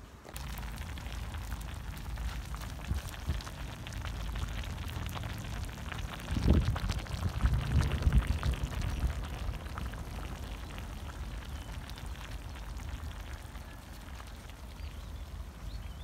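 Beef tagine simmering in its sauce: a steady fine bubbling crackle, over a low rumble that grows louder for a couple of seconds about six seconds in.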